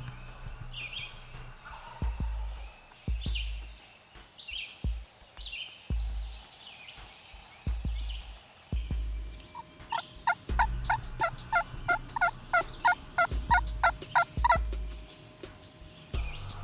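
Wild turkey calling in the woods: a long run of evenly spaced, ringing yelps, about three a second, starts about halfway in and stops a second or so before the end. Songbirds chirp throughout, with low rumbling thumps underneath.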